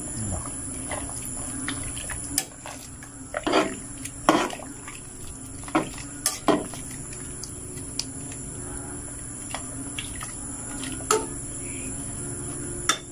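Metal spoon knocking and scraping against an aluminium cooking pot as tomato sauce is squeezed from a plastic pouch and stirred into the stew, about ten separate sharp clicks. A steady high insect trill, like crickets, runs underneath.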